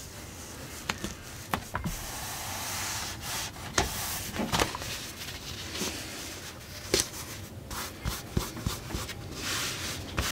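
Hands sticking an adhesive camo Stealth Strip along the edge of a foam seat cushion and rubbing it down. Rustling, rubbing hiss comes in stretches, with scattered sharp clicks and taps from handling the pad.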